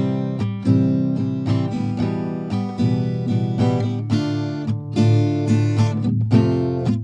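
Background music led by strummed acoustic guitar, with a steady rhythm of plucked chords.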